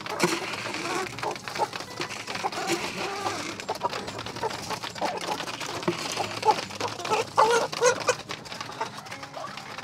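Caged Dominant CZ chickens clucking while they eat from a plastic pipe trough, with many quick taps of beaks pecking at the feed. The clucking is loudest around seven to eight seconds in.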